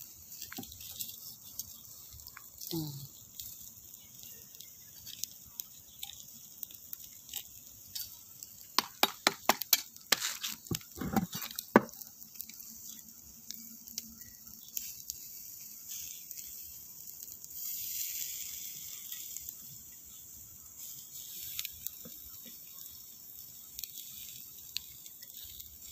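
Chicken satay sizzling on a wire grill over bamboo embers, with scattered crackles. A quick run of sharp pops comes about nine to twelve seconds in.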